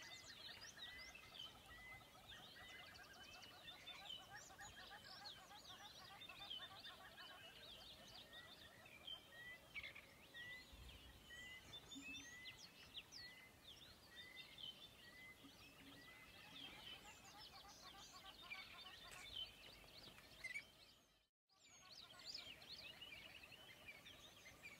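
Faint birdsong: many birds chirping and calling, with one bird repeating a short chirp over and over for a while. The sound cuts out for a moment near the end.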